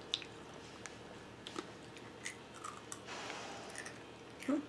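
A foil snack bag being handled, with soft scattered crackles, and crunchy rusk snacks being chewed. A longer crinkle comes about three seconds in, and a short, louder sound near the end.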